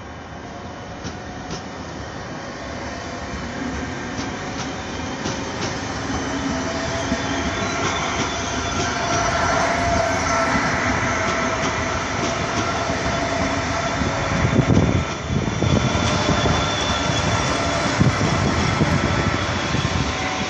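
Trenord double-deck electric regional train rolling past, growing louder through the first half as it nears. Its wheels click over the rail joints, with a steady high whine in the middle of the pass and a heavy low rumble about three quarters through.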